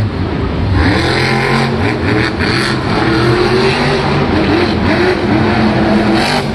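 Monster truck's supercharged V8 engine revving hard, its pitch rising and falling again and again as the truck drives the dirt course.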